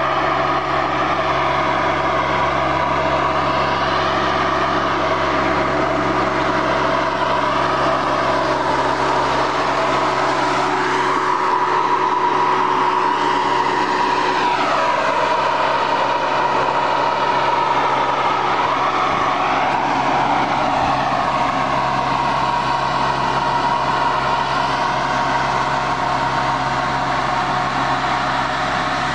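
Tractor-mounted Tifone Vento air-blast electrostatic sprayer running at work: the tractor engine and the sprayer's big fan give a steady, loud whir and drone. The pitch rises and falls once near the middle.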